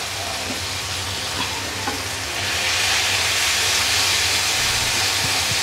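Onion-tomato masala frying in coconut oil in a pan, stirred with a wooden spatula. The sizzle grows louder a little over two seconds in.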